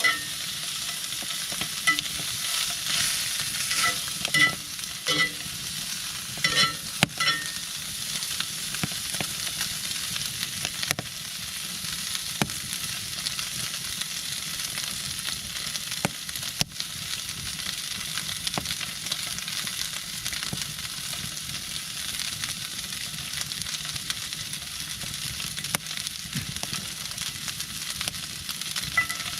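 Steak sizzling steadily on a hot cooking surface over a wood fire, freshly laid on with rosemary. A few sharp clicks and pops come in the first several seconds.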